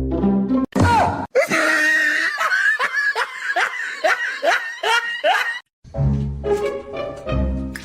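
A run of hearty laughter, about eight rhythmic pulses, between stretches of background music with a heavy bass beat.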